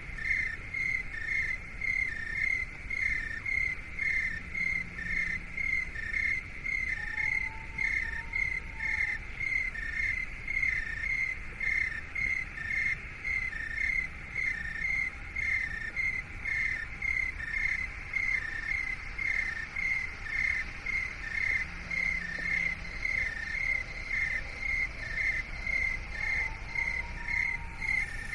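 Steady cricket-like chirping: short, evenly spaced chirps that alternate between two close pitches in a regular rhythm. Twice a faint whistle rises and falls beneath it.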